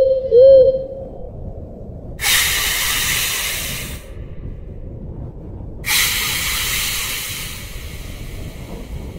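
A short pitched call, arching down and back up, right at the start, then two long hisses about three and a half seconds apart, the second trailing off slowly, over a low steady rumble.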